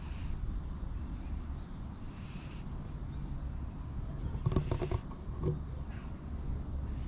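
Short high bird calls repeating about every two seconds, with a lower pulsing call about halfway through, over a steady low rumble.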